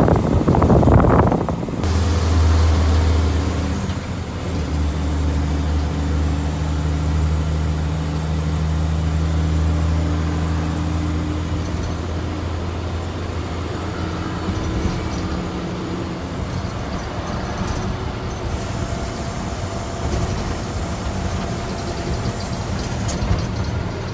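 Mercedes-Benz 1620 truck's diesel engine droning steadily while the truck cruises on the highway, heard from inside the cab with road and wind noise. The first couple of seconds are a loud rush of wind noise, and the engine drone eases off about halfway through.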